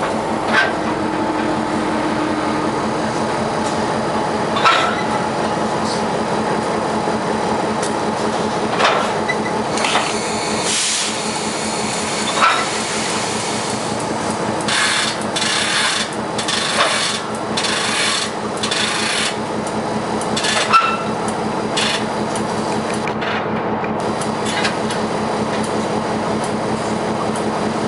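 Diesel locomotive running steadily as it slowly shoves a tank car: a constant engine hum with a few sharp knocks from the wheels and couplers, and several stretches of hiss in the middle.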